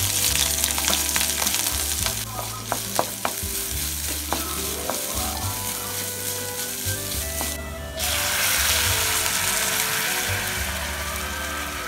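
Green chillies, ginger and garlic sizzling in hot oil in a metal kadai, with a wooden spatula clicking and scraping against the pan as carrot strips are stirred in. About eight seconds in, water is poured into the hot pan and a louder sizzle sets in.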